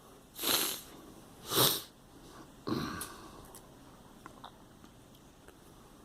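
A girl with a cold sniffing twice, then giving one short cough about three seconds in.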